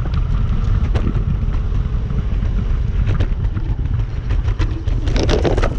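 Wind buffeting the microphone with a steady low rumble while riding a Dualtron Compact electric scooter, scattered light clicks and a short hissing burst about five seconds in.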